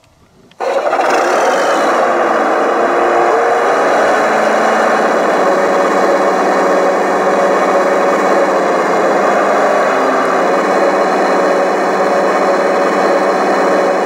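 Hydraulic pump and drive of a large-scale RC Caterpillar 374F excavator running, a loud, steady mechanical whirr that starts suddenly about half a second in, its pitch shifting a little over the next few seconds as the boom and bucket move.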